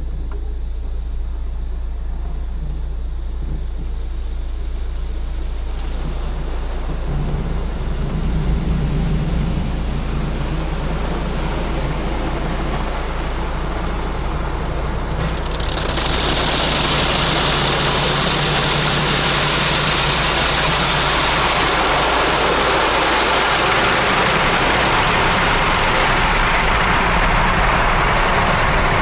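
Automatic car-wash machine running with a steady low hum. About halfway through, a loud, steady rushing hiss starts as the wash's jets come on.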